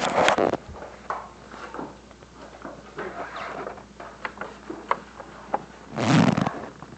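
Paper bag rustling and crinkling as a cat moves about in and against it, with loud bursts of crumpling at the start and again about six seconds in, and light scattered crackles between.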